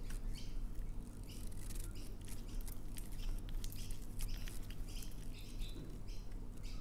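Pink slime with pearl beads mixed in being stretched, folded and squished by hand, giving many irregular wet clicks and small pops.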